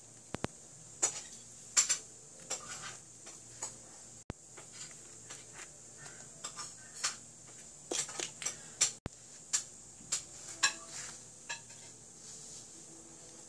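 Kinetic sand being squashed and pressed by hand on a crinkly plastic sheet: irregular crackles and soft taps, thickest about two-thirds of the way through, over a steady faint hiss.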